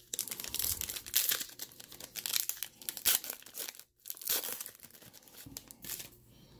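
A Donruss baseball card pack being torn open, its wrapper crackling and crinkling as the cards are pulled out. There is a brief pause about four seconds in, and the sound dies down near the end.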